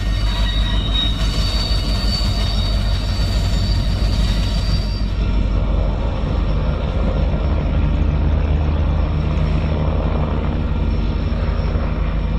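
Union Pacific diesel freight train passing: locomotive engines rumbling steadily under the noise of the rolling cars. A thin high squeal is heard during the first few seconds.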